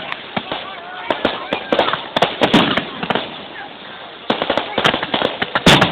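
Fireworks going off in quick runs of crackling pops, easing off briefly in the middle, with the loudest bang near the end. Voices can be heard behind them.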